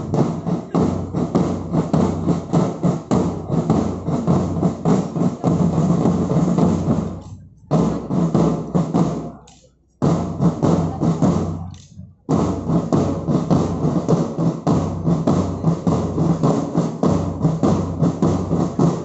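Marching drum corps of bass drums and snare drums beating a steady marching rhythm. The drumming breaks off briefly a few times in the middle.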